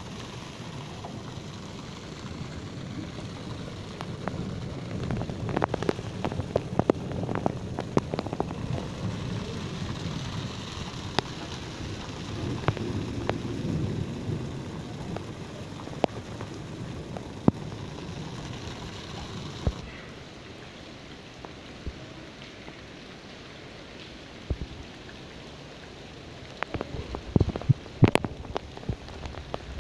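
A hailstorm: a steady patter of falling hail and rain, with frequent sharp clicks of hailstones striking hard surfaces. It grows quieter about two-thirds of the way through, then a run of loud clicks comes near the end.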